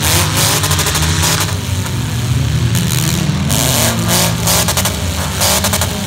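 Demolition derby cars' engines revving hard and unevenly, pitch rising and falling, with bursts of banging and clatter from the cars ramming one another.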